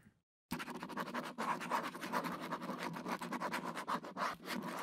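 Ink pen scratching across paper on a light table in rapid short strokes, starting about half a second in.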